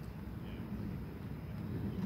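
Low, uneven rumble of wind buffeting the microphone, with a faint short high chirp about half a second in.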